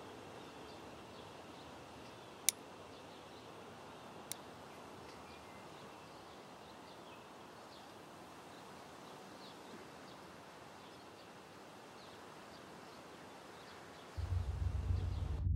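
Outdoor park ambience: a steady background hiss with faint bird chirps, broken by two sharp clicks about two seconds apart. About a second before the end a much louder low rumble comes in.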